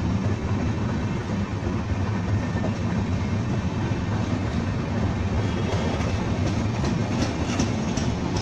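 Indian Railways LHB passenger coaches rolling past close by. Their wheels run on the track with a steady low rumble, and the clickety-clack of wheelsets crossing rail joints grows sharper and more frequent in the second half.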